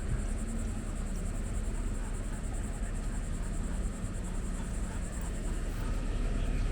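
Vehicle engine running with a steady low rumble, with insects buzzing in an evenly pulsing high drone above it.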